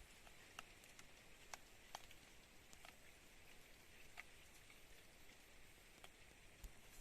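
Near silence, with faint, sharp clicks scattered irregularly, roughly one or two a second.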